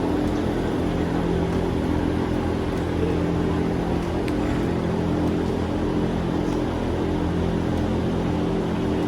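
Steady engine drone: a constant low hum that holds one pitch without revving.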